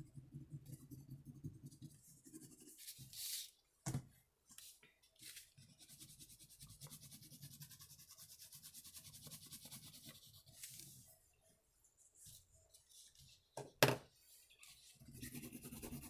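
Crayon rubbed on construction paper in quick back-and-forth strokes, blending colour. A sharp knock comes about four seconds in and another near the end.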